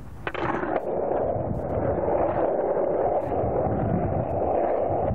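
Skateboard rolling down a steep asphalt street, its wheels giving a steady rolling noise that starts abruptly just after the beginning.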